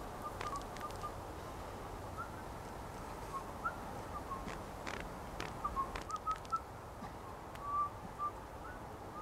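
Birds chirping in woodland: many short, scattered chirps over a steady low background hiss, with a few faint clicks.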